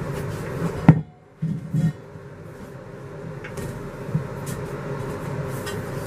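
Knocks and clatter of a trailer's dinette table being handled and lifted off its post, with one sharp knock about a second in and a few softer knocks and clicks after, over a steady low hum.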